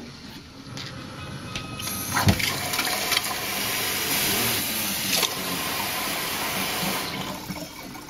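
Kitchen faucet running water into a glass coffee carafe, filling it. The water starts about two seconds in with a sharp knock and stops about a second before the end.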